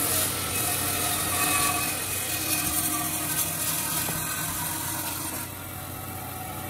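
Band saw cutting through a thick wooden board, the motor running steadily under the hiss of the blade in the wood. About five and a half seconds in, the cut finishes and the hiss drops away, leaving the saw running free.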